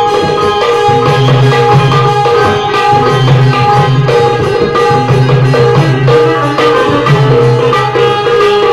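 Dholki barrel drum playing a rhythm with deep bass-head tones, under a continuous melody on an Indian banjo (benjo).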